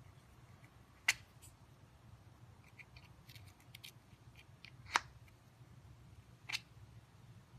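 Yellow plastic rebar safety cap clicking against a ribbed steel rebar as it is handled and pushed onto the bar end: three sharp clicks, the first about a second in and the other two in the second half a second and a half apart, with faint light ticks between the first two.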